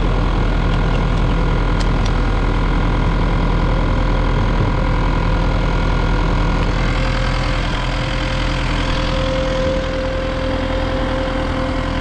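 Electric fuel transfer pump on a diesel slip tank running steadily, pumping dyed diesel through the hose and nozzle into a Kubota skid steer's fuel tank. The pump's hum is loud and even, and a higher tone grows stronger in the second half.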